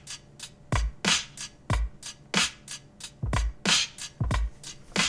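A soloed drum loop playing back: kick drum thumps and sharp snare hits, roughly one snare every second and a bit, with lighter hi-hat ticks in between, in a steady beat at a moderate tempo.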